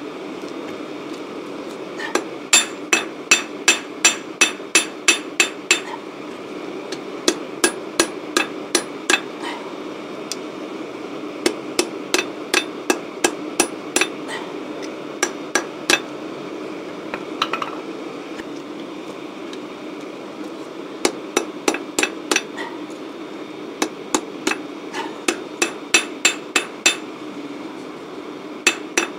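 Ball-pein hammer striking a small piece of hot steel held in tongs on an old sledgehammer head used as an anvil: runs of sharp, ringing metal-on-metal blows, about three a second, with short pauses between runs.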